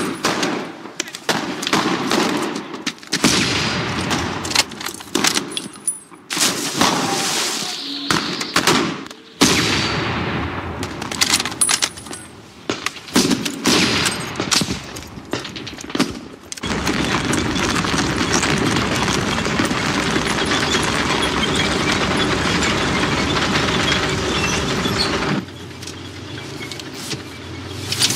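Film battle sound: rifle and machine-gun fire with sharp shots and impacts, then a dense steady din of gunfire that cuts off suddenly about three quarters of the way through, leaving a quieter, duller stretch.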